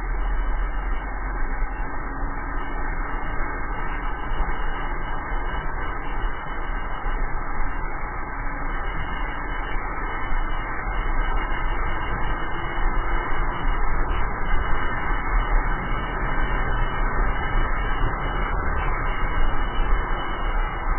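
Wind buffeting the camera microphone and the rush of a drift trike's wheels rolling fast down asphalt: an even noise over a strong low rumble, unbroken throughout.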